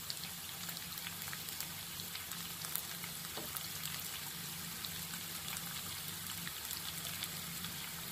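Chopped shallots and onion frying in hot oil in a nonstick wok, a steady sizzle with scattered small crackles, over a faint low steady hum.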